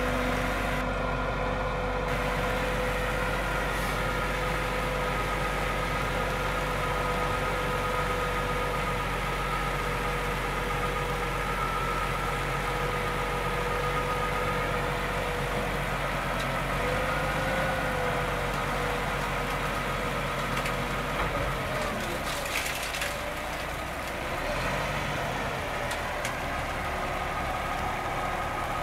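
Diesel dump truck engine running steadily at idle while the hydraulic hoist raises the dump body, with a steady tone over the engine note. The low end of the sound shifts a little over twenty seconds in.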